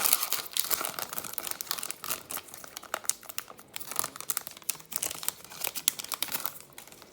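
A foil trading-card pack wrapper being torn open and crinkled in the hands, a dense run of crackles that dies away near the end.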